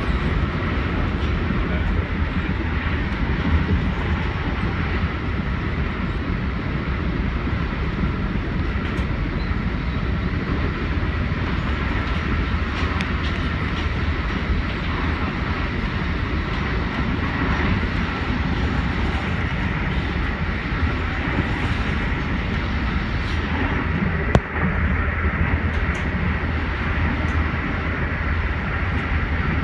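Amtrak Acela Express train running: a steady low rumble and rail noise with a faint steady whine over it, and a single sharp click late on.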